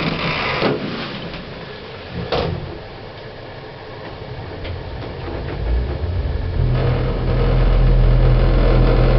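Shopping-centre lift doors shutting with a couple of short clunks, then the lift setting off: a low, steady hum of the lift machinery comes in a little over halfway through and grows loud as the car travels.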